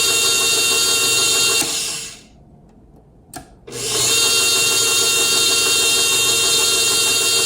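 KitchenAid Pro 600 stand mixer running with a steady motor and gear whine during a test of its newly replaced planetary assembly and regreased gearbox. About a second and a half in it is switched off and winds down, a small click comes in the quiet gap, and then it starts back up and runs steadily again.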